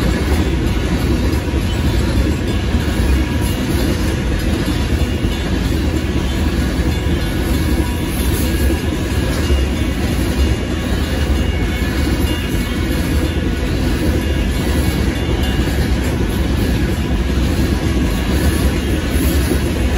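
Freight train of covered grain hopper cars rolling steadily past a grade crossing, steel wheels running on the rails.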